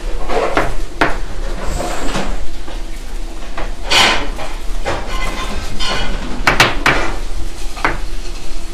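Busy kitchen clatter: a chef's knife knocking on a cutting board as an onion is cut, mixed with pans and utensils clanking, in irregular sharp knocks.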